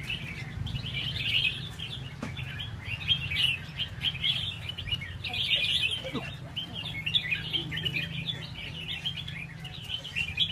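Several caged red-whiskered bulbuls singing at once, a dense, continuous stream of overlapping short chirps and warbles, with a steady low hum underneath.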